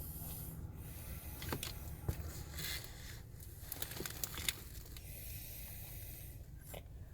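Soft hissing snore breaths, with a few light clicks and taps between them.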